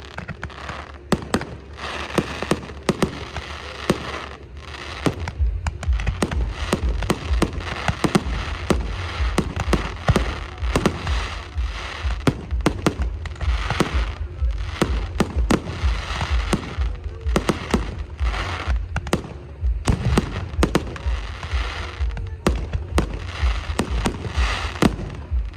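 Fireworks going off: many sharp bangs and pops in quick succession over continuous crackling.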